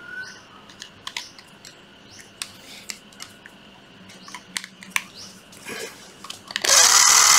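Hands handling a cordless tool's plastic housing and rubber boot, with scattered small clicks and taps. About six and a half seconds in, a Hitachi 12V cordless impact driver is trigger-tested and runs loud, spinning free with no load.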